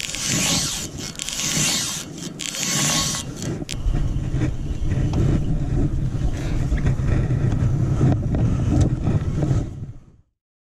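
Small rowboat crossing a river: wind rumbling on the microphone, with a hiss of water and scattered knocks from the boat in the first few seconds. The rumble grows heavy and steady from about four seconds in, then cuts off abruptly near the end.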